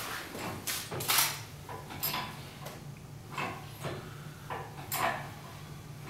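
Hand-pumped hydraulic engine crane (Harbor Freight engine hoist) being jacked up under a heavy load: a string of short mechanical clunks and squeaks from the pump-handle strokes, about one every half second to second.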